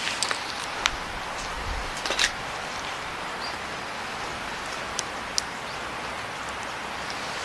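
Campfire crackling: a few sharp pops scattered over a steady hiss.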